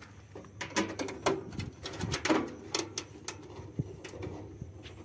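Light, irregular clicks and taps of small metal screws being picked out of a plastic lid and fitted into the sheet-metal cover of a solar inverter.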